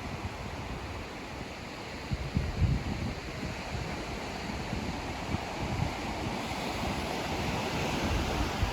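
Sea waves washing onto a beach in a steady surf, with wind buffeting the microphone in low rumbling gusts about two seconds in and again near the end.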